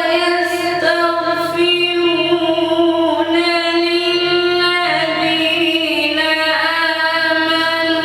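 A male Quran reciter's voice chanting in melodic tarteel style, holding a long drawn-out note. The pitch steps down about five seconds in and moves again near the end.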